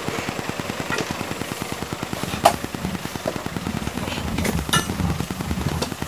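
Ambulance van's engine idling with a rapid, even putter from the exhaust. Over it come a few sharp clacks as the stretcher is handled, the loudest about two and a half seconds in.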